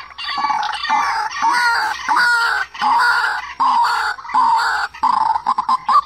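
Young white-breasted waterhen calling: a string of short repeated calls, each under a second, with brief breaks between them.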